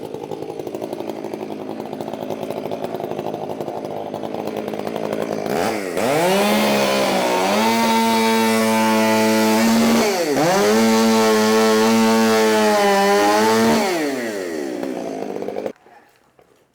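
A big, loud two-stroke chainsaw with a bark box muffler idles, then is revved to full throttle for two cuts of about four seconds each through pine slab offcuts, dipping briefly between them. It drops back to idle and cuts off suddenly near the end.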